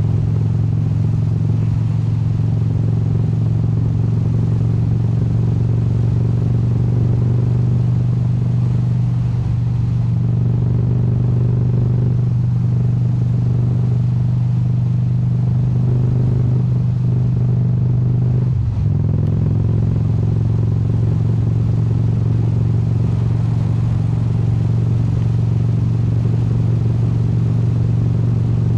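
Indian motorcycle's V-twin engine running steadily under way. A little past two-thirds of the way through the note breaks briefly and settles at a slightly different pitch, like a gear shift or throttle change.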